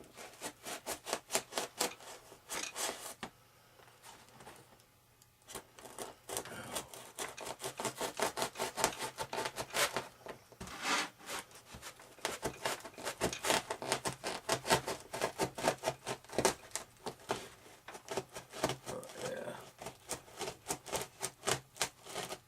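Hobby knife sawing through a foam RC wing: quick, regular rasping strokes, a few per second, with a pause of about two seconds a few seconds in.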